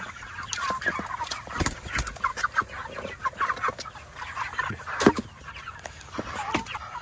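A flock of chickens feeding, making many short, high chirping calls, with a few sharp knocks.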